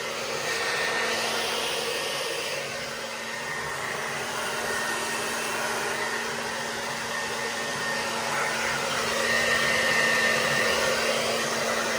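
Handheld hair dryer blowing steadily, a rush of air over a low motor hum and a faint high whine, growing a little louder and softer as it is moved about.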